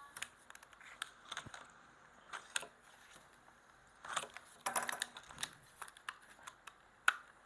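Plastic blister packaging and card backing of a Hot Wheels die-cast car being handled and opened: irregular clicks and crackles, with the busiest clusters about four to five seconds in.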